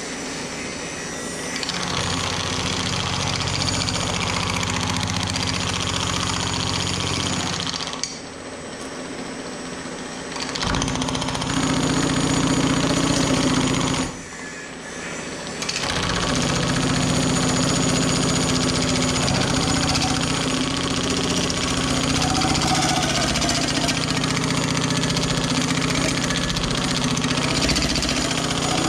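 Pullmax reciprocating sheet-metal forming machine running, its ram hammering rapidly as a test piece is run through custom bead-rolling dies. It stops briefly twice, about eight and fourteen seconds in.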